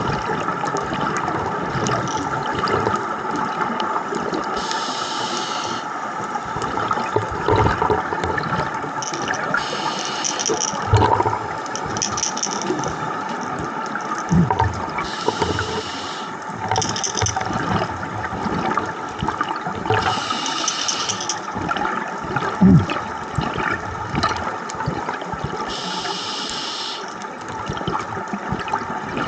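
Scuba diver breathing through a regulator underwater. A hiss about every five seconds marks each breath, with bubbling and gurgling from the exhaled bubbles in between.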